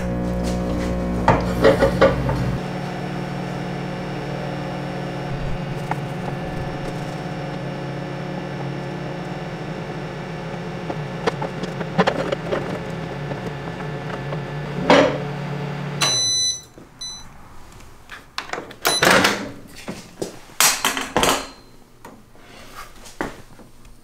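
Microwave oven running with a steady electrical hum while heating a frozen glass dish, cutting off suddenly about sixteen seconds in with a few short high beeps. Then several knocks and clicks as the door is handled and opened.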